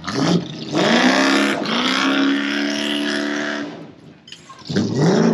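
Motorcycle burnout: the engine revs up and holds high revs for about three seconds while the rear tire spins on the pavement. The revs drop off, then climb again near the end.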